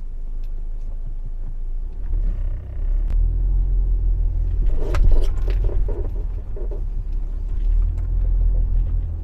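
2015 Audi A4 front suspension creaking and squealing (吱吱哇哇) over a low road rumble: a squeal about two seconds in and a run of creaks around five seconds in. It sounds like rubber bushings rubbing, which the mechanic traces to worn control-arm bushings. Keys jangle faintly.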